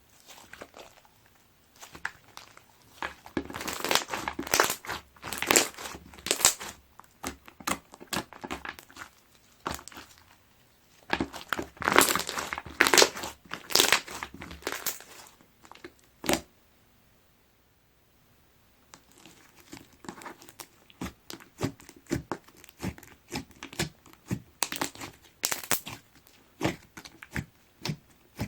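Hands squishing, stretching and pressing clear slime packed with small plastic deform blocks, giving crinkly, crackling pops and clicks in bursts. After a pause of about two seconds past the middle, it goes on as a quick run of sharp clicks and pops.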